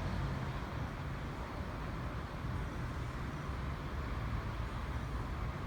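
Electric suburban train pulling into the station platform: a steady low rumble under a broad hiss.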